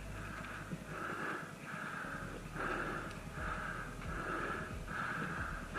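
A person breathing hard in quick, even breaths, roughly one every 0.7 seconds, as if moving fast.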